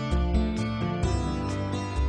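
Background music with a steady beat, guitar-led.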